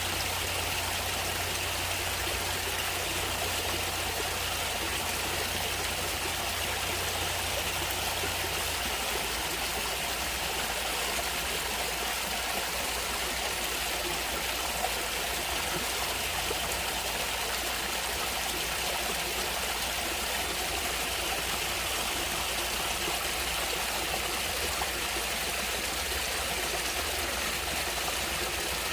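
A natural stream of water flowing steadily, an even watery hiss. A low hum underneath drops away about nine seconds in.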